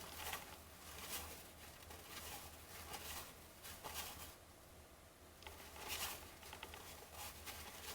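Baseball cards being handled and flipped through by hand: faint, irregular rustling and light sliding of card stock.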